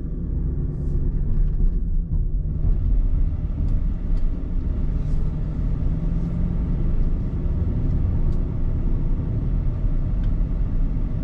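Pickup truck engine and road rumble heard from inside the cab while driving, a steady low hum that gets louder about two and a half seconds in.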